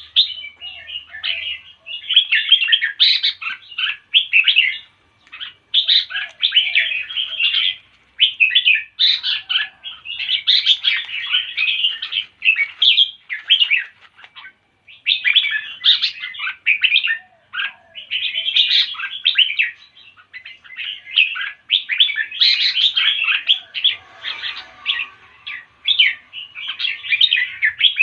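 A songbird singing in phrases of fast, high chirps and warbles, each a second or two long, one after another with brief pauses between.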